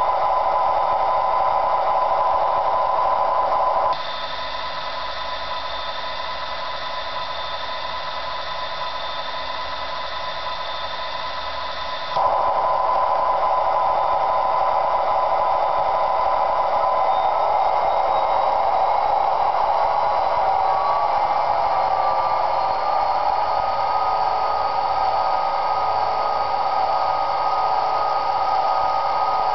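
Diesel locomotive sound from a Bachmann DDA40X model's sound decoder, played through small speakers with a narrow, tinny tone. About four seconds in it switches abruptly to a different speaker pair, quieter and thinner. About eight seconds later it switches back to the fuller, louder speakers.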